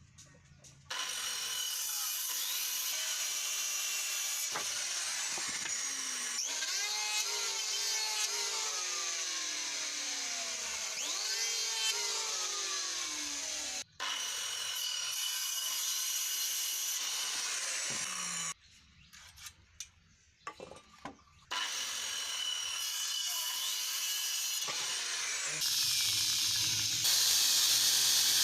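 Electric power tool cutting wood, its motor pitch sagging and recovering as it bites into the workpiece. It cuts out for an instant about halfway, pauses for a few seconds with a few knocks, then runs again, louder near the end.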